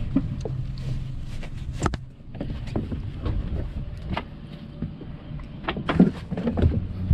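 Scattered knocks, clicks and rustles of a rope being handled aboard a rigid inflatable boat against a wooden pile, over a steady low rumble. The loudest knocks come about six seconds in.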